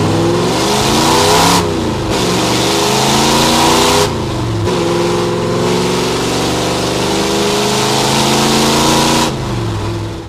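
Ford F100 truck engine running through open headers, accelerating hard with rising pitch; it drops twice for upshifts, about 1.7 and 4 seconds in, pulls again, then the throttle comes off near the end. Heard from inside the cab.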